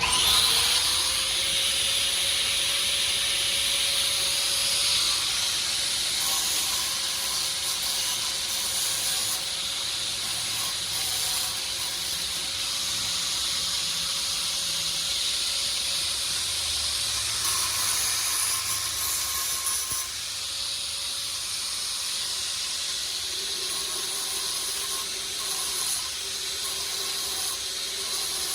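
Loud steady hiss of a jet or spray that starts suddenly, with a motor whine that spins up as it starts and then holds one steady pitch.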